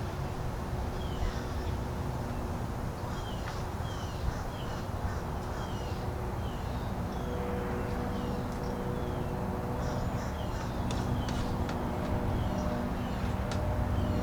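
A bird calling over and over with short, downward-slurred notes, roughly two a second, over the low drone of a small propeller airplane that grows louder in the second half.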